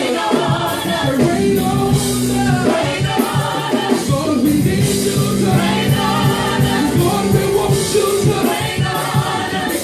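Gospel music: a band with drums plays under held, sustained singing.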